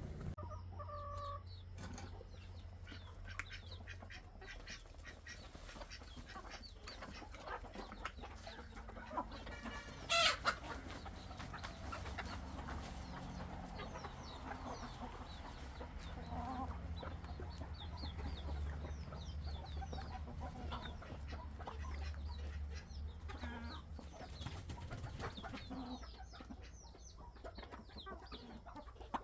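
Chickens clucking and calling, with one brief loud call about ten seconds in and a steady low hum underneath.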